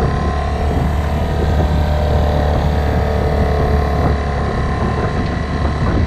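A 9.9 hp outboard motor running steadily at a constant speed, pushing a small sailboat.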